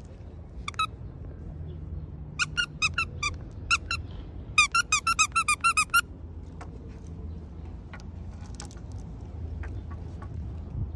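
Squeaker in a plush hedgehog dog toy being squeezed by hand, giving short high squeaks. There is one squeak, then a run of about seven, then a fast string of about ten that stops about six seconds in.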